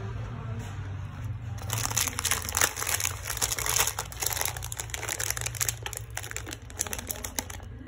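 Clear plastic packaging of a set of soldering pick tools crinkling as it is handled, starting about a second and a half in, over a steady low hum.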